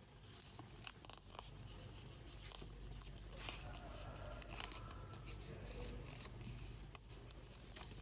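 A sheet of paper being folded and creased by hand: faint crinkling and rustling with short scratchy creasing strokes, over a low steady hum.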